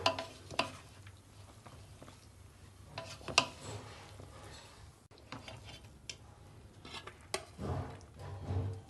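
A serving spoon stirring cooked biryani rice in a metal pot: scattered clicks and knocks of the spoon against the pot, the loudest about three and a half seconds in, with the soft scrape and rustle of the rice. Near the end the rice is scooped out with denser scraping and handling sounds.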